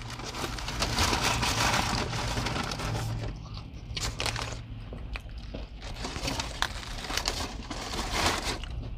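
Paper fast-food wrappers crinkling and rustling as they are handled, with many small sharp crackles, busiest over the first few seconds.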